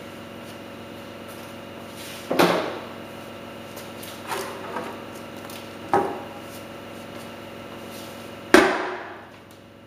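Metal paint tins being set down on a hard floor: five sharp knocks and clanks, each with a short ringing tail. The loudest come about two and a half seconds in and near the end, over a steady faint hum.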